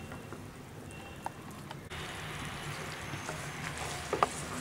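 Jaggery syrup boiling hard in a pan: a steady crackle of bursting bubbles that grows louder about two seconds in, with a sharp knock near the end. The syrup is being boiled down toward the thread stage for burfi.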